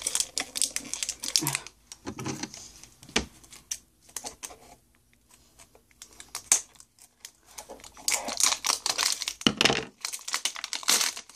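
Foil wrapper of a Pokémon card booster pack being torn open and crinkled by hand, a dense run of sharp crackles, a quieter lull in the middle, then more crackling near the end.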